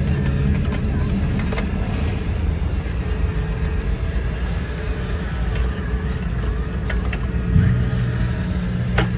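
Hydraulic pump and motor of a long-boom Caterpillar RC hydraulic excavator running steadily as the arm lowers the bucket to dig soil. The hum shifts in strength about three-quarters of the way through as the load changes. A few sharp clicks come through, one early and one near the end.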